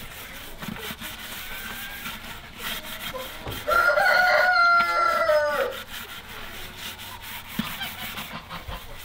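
A rooster crows once, a call of about two seconds starting a little over three and a half seconds in, the loudest sound here. Underneath, a scourer scrapes the inside of a plastic poultry-drinker bucket in short scratchy strokes.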